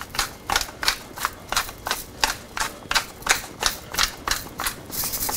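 Hand pepper mill grinding black peppercorns: a steady run of sharp ratcheting clicks, about three a second, as the mill is twisted back and forth.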